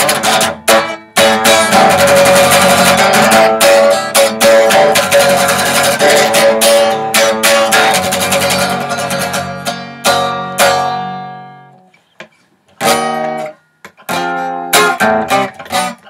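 Single-cutaway electric guitar strummed in chords without singing. A chord is left to ring and fade out about ten seconds in, then after a short pause the strumming starts again with a few chords and carries on near the end.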